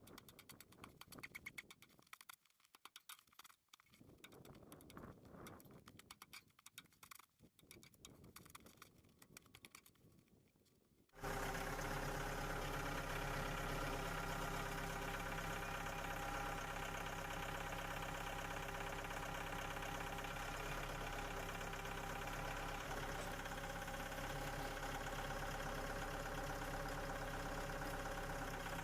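Faint, irregular clicks and knocks. Then, about eleven seconds in, a small engine or motor starts at once and runs steadily with an even hum.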